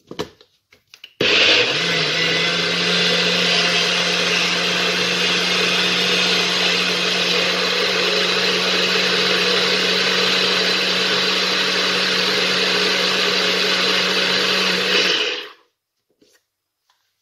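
NutriBullet personal blender motor blending pancake batter. It starts a second in with a brief rising spin-up, runs steadily at full speed while the cup is pressed down on the base, and stops near the end. A few light clicks from the cup being set on the base come just before it starts.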